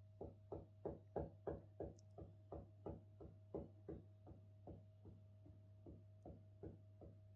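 A lying dog's wagging tail thumping on the carpet, about three soft thumps a second, getting weaker and a little slower over the last few seconds.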